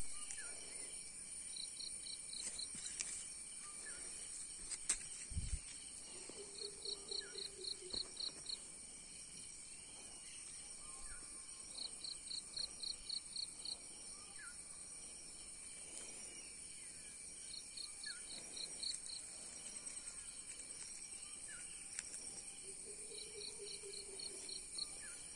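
Insects chirping: a steady high-pitched buzz, with a run of about seven quick chirps repeating every five or six seconds.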